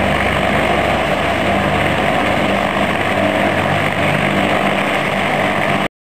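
BK 117 twin-turbine helicopter running on the ground, with a steady turbine and rotor noise that cuts off suddenly near the end.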